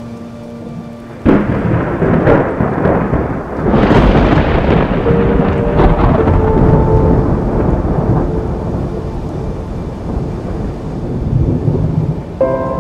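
A thunderclap cracks suddenly about a second in, then rolls on as rumbling thunder with further peals around two, four and six seconds in, slowly dying away. Soft ambient music with sustained notes plays under it at the start and comes back in near the end.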